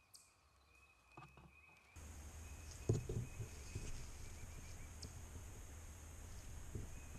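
Faint handling noise from a camera held close: a few short knocks and rubs, the loudest about three seconds in, over a steady low rumble and a faint high whine in the background.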